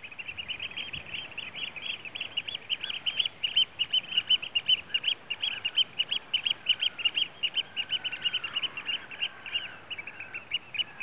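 Birds calling over the mudflats in a fast, unbroken run of high, sharp notes, several a second, with a few lower falling whistles now and then in the second half.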